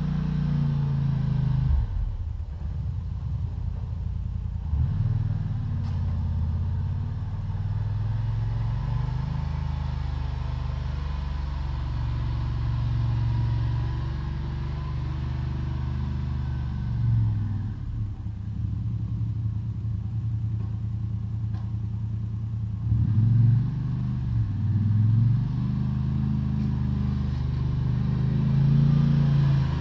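ATV engine running as the quad pushes snow with a front plow blade, its pitch rising and dropping several times as it drives back and forth.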